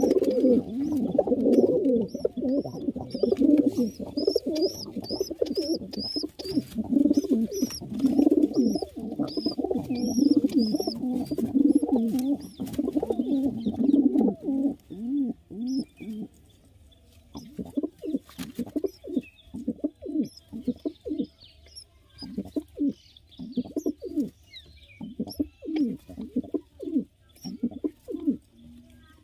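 Pigeons cooing: a low, nearly unbroken warbling for about the first half, then short separate coos. High squeaky chirps repeat about twice a second over the first several seconds.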